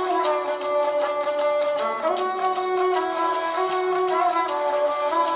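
Ravanahatha, a Rajasthani bowed folk fiddle, playing a melody alone. Notes are held and slide into one another, and small bells jingle steadily along with the bowing.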